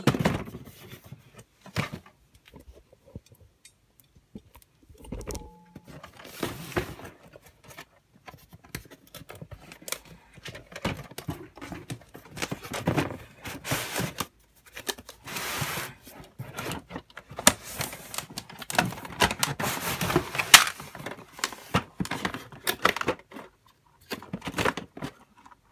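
Cardboard box and packaging scraping and rustling as the contents of a Plarail toy train set are pulled out, with scattered clicks and clatter of plastic Plarail track pieces being handled and set down. The handling noises come and go and are busiest in the second half.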